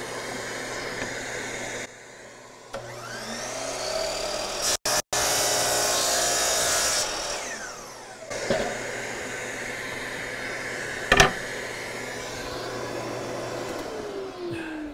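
Bosch GCM12SD 12-inch glide miter saw motor spinning up, its blade cutting through a hardwood board for about two seconds, then winding down. A sharp click comes about eleven seconds in, and the motor's pitch falls again near the end as it coasts down.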